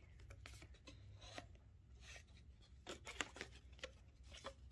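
Faint, scattered snips and scrapes of cutting and trimming by hand, a few sharper clicks about three seconds in.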